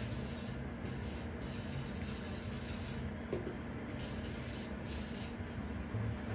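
Felt-tip marker pen rubbing and squeaking across a square cardboard autograph board (shikishi) in a series of short strokes as a signature is written, over a steady low hum.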